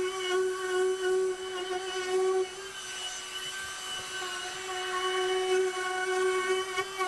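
Router running with a steady high whine as it cuts a juice groove into an end-grain hardwood cutting board; the whine weakens for about a second partway through.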